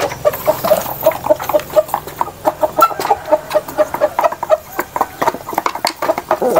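Bangkok chickens, gamecocks and hens, pecking feed from a wooden trough: a rapid, irregular patter of beak taps. Low clucking repeats about four times a second through the first few seconds.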